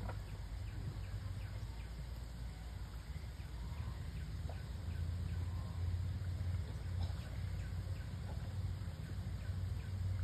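Outdoor ambience: a steady low hum with a faint, regular ticking like an insect and a few short bird chirps.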